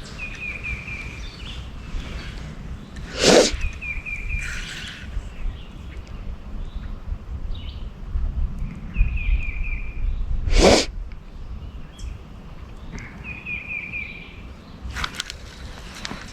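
A songbird repeating a short phrase of a few quick, even notes about every four seconds, with a low steady rumble of wind on the microphone. Two loud whooshes come about 3 and 10 seconds in.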